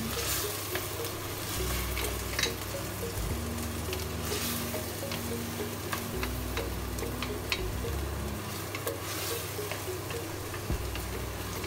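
Wooden spoon stirring and scraping chopped onions and tomato sauce sautéing in a metal pressure cooker pot, over a steady sizzle of frying, with scattered light clicks of the spoon against the pot.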